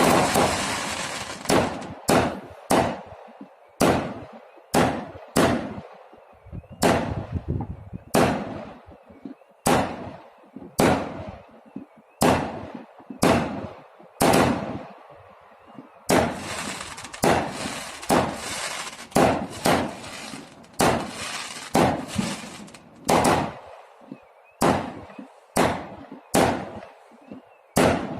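Fireworks going off in rapid succession: a long run of sharp bangs, about one or two a second, each trailing off in echo, with crackling between some of them.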